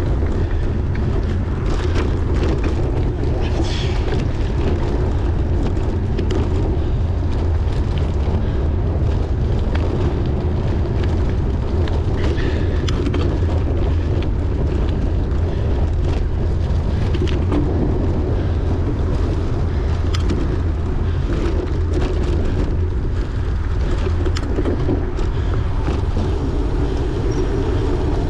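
Wind buffeting the microphone of a camera carried by a racing cyclist, a steady low rumble, with frequent short clicks and rattles of the bicycle running over rough ground.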